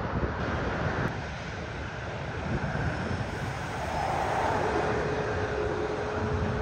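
Airplane engine noise, a steady rumble with a faint, even whine coming in about two-thirds of the way through, while wind buffets the microphone.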